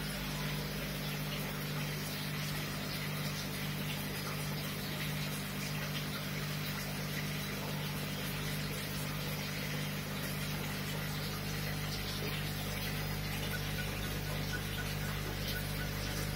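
Aquarium pump running steadily: a constant low hum under an even wash of moving water.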